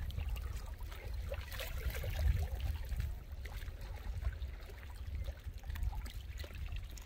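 River water lapping and sloshing around men wading and swimming neck-deep, with small splashes and a low rumble underneath.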